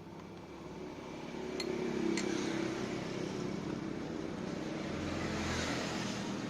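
A small motor running steadily with a hum and a hiss, growing louder over the first two seconds and then holding.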